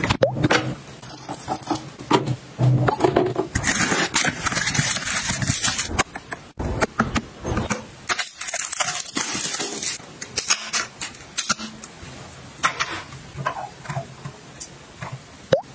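Close-up handling sounds: a string of taps and clicks from bottles and containers, with stretches of crackly plastic wrap.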